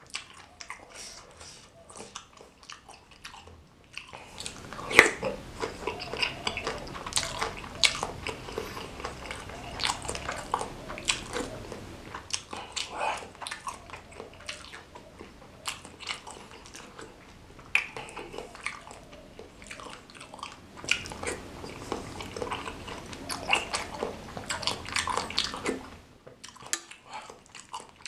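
Close-miked chewing and biting of spicy meatball soup with noodles and green chilies, a busy run of wet mouth clicks and crunches. It starts softly and grows fuller after a few seconds, then eases off near the end.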